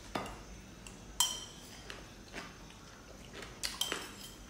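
Metal spoons clinking and scraping against ceramic plates during a meal: a few sharp clinks, the loudest about a second in and a quick pair near the end.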